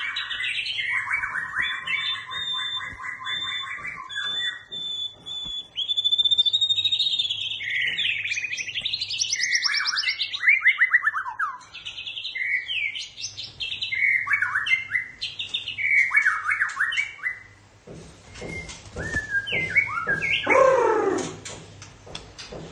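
Young murai songbird calling and singing: a run of varied chirps, fast rattling trills and whistled phrases, with a falling string of notes near the end.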